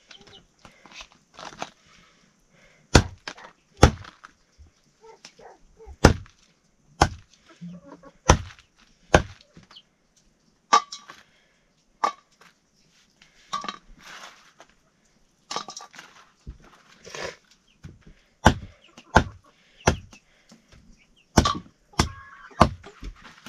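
Blade chopping on a wooden board: heavy, sharp chops about a second apart in short runs, with quieter knocks and scraping between them, typical of meat being cut up for a curry.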